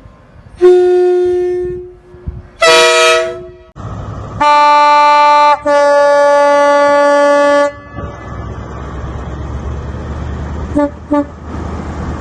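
Train horns sounding a series of separate blasts: a single low note about half a second in, a higher note a couple of seconds later, then two long two-tone chords in the middle. After that comes the rumble of a moving train, with two short toots near the end.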